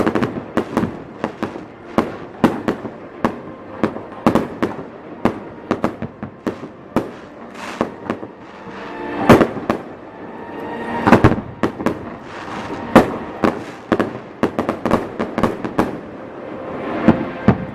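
Aerial fireworks bursting in a rapid, irregular series of sharp bangs, several a second, with louder clustered volleys about nine, eleven and thirteen seconds in.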